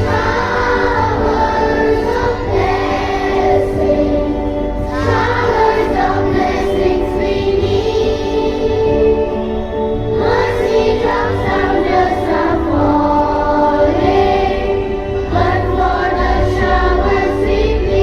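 A school choir singing a prayer hymn, phrase by phrase, over steady held notes.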